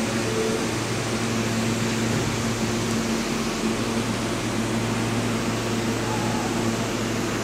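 R160 subway train standing at the platform, its air-conditioning and onboard equipment giving a steady hum and hiss.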